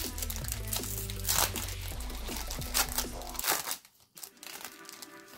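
Foil Pokémon booster pack wrapper crinkling and tearing as it is opened by hand, in several short crackly bursts, over background music that cuts out about two-thirds of the way in.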